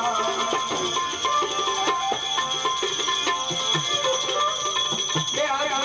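Instrumental passage of traditional Gujarati folk music: a held melody line moving over a steady beat of percussion strokes, with constant high metallic jingling.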